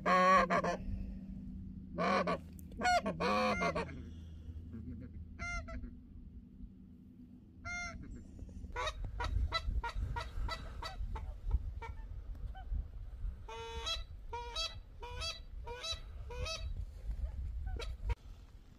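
Wild geese honking: a few loud calls in the first four seconds, then a rapid run of short calls from about nine seconds in.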